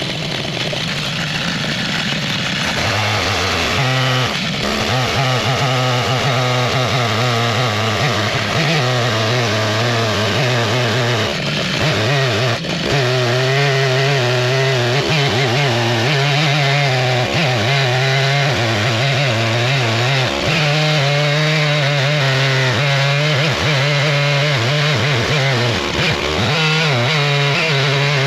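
Stihl MS881 two-stroke chainsaw with a 56-inch bar running at high revs in an Alaskan chainsaw mill, ripping lengthwise through a wide elm log. The engine note wavers continually as the saw labours in the cut.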